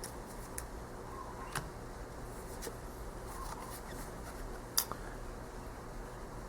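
Tarot cards being handled and turned over one at a time: a few soft clicks and taps of card stock, the sharpest about three quarters of the way through, over a steady low room hum.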